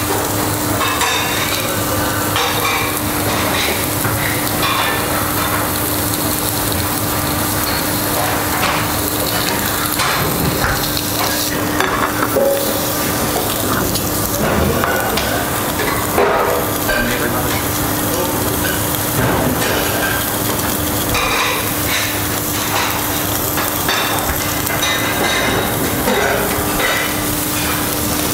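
Dry-aged beef steak sizzling steadily as it sears in a hot ridged grill pan after sous-vide cooking, over a faint steady hum. Now and then a short clink or knock of a plate or utensils, the loudest about twelve and sixteen seconds in.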